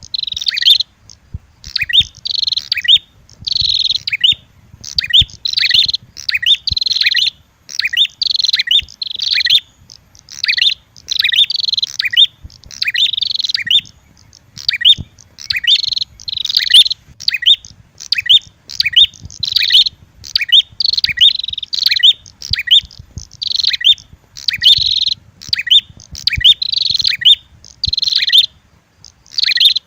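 Prenjak bird-lure calls: a red-headed prenjak mixed with a female prenjak's agitated fighting calls. Loud, rapid bursts of high chirping follow one another almost without pause.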